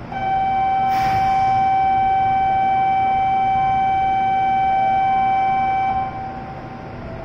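Station platform departure warning buzzer: one steady electronic tone held for about six seconds, then cutting off. A brief hiss sounds about a second in.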